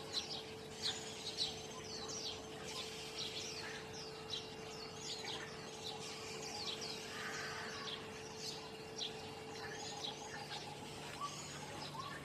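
Small birds chirping in quick, overlapping short high notes throughout, over a steady faint hum.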